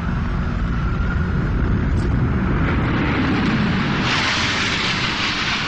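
Low rumble that swells, over the last couple of seconds, into a loud rushing roar of a low-flying jet airliner's engines as the Boeing 767 dives in toward the South Tower just before impact.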